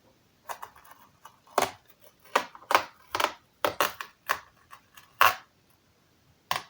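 Adhesive-backed rubber strip being peeled off the underside of a laptop: an irregular run of short, sharp crackles and clicks as the glue lets go bit by bit.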